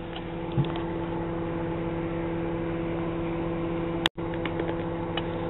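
Microwave oven running with a steady hum, heating a teabag. A sharp click sounds about four seconds in, and faint small ticks follow.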